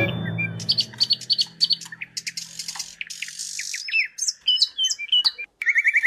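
Birds chirping, with short sweeping calls scattered throughout, while a held music chord dies away over the first few seconds. A quick run of chirps comes near the end.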